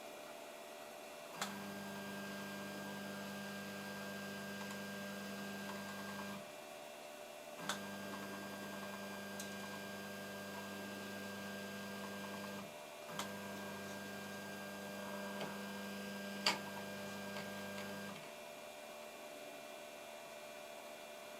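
A 3D printer's Z-axis stepper drive, synchronised by a timing belt, running at a steady speed in three moves of about five seconds each. Each move starts with a click, and a steady hum lies underneath throughout.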